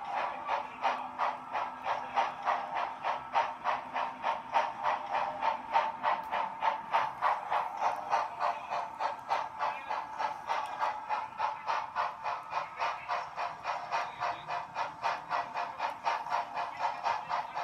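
Steam locomotive chuffing steadily, about five chuffs a second with a hiss, coming from a running model streamlined steam locomotive.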